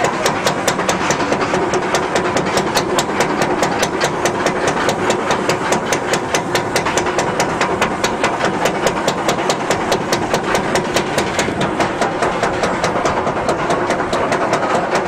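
Roller coaster train climbing a chain lift hill: the anti-rollback dogs clack in a rapid, even rhythm, about five a second, over the steady rumble of the lift.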